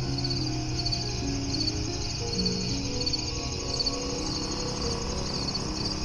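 Insects, cricket-like, chirping in short pulsed trills that repeat about once a second, over soft background music with long sustained low notes.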